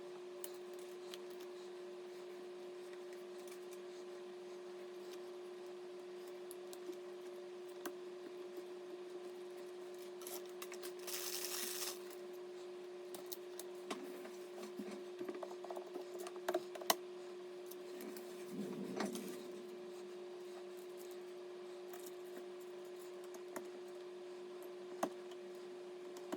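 A steady low hum throughout, with scattered faint clicks and light rustling; a brief hiss about eleven seconds in and a short muffled rustle a little before the twentieth second.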